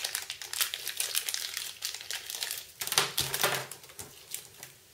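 Thin clear plastic bag crinkling as hands pick it open and take out a set of wired in-ear headphones. The crinkling thins out and quietens in the last second.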